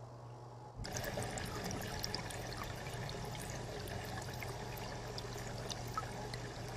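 Water trickling and bubbling, starting about a second in, over a low steady hum.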